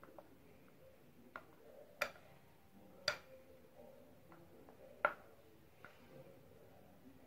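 A few light, irregular clicks and taps from a clear plastic jug being handled and tipped over a metal cake pan as thick marshmallow mixture is poured in.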